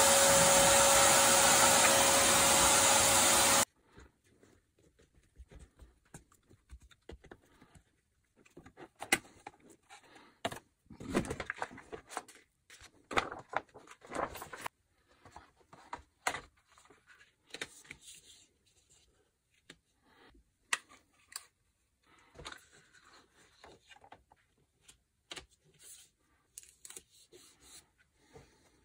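A small electric blower runs loudly with a steady hum for about four seconds, then cuts off. After that come scattered light knocks, rubs and rustles as a picture frame, its cardboard backing and a paper print are handled on a wooden workbench.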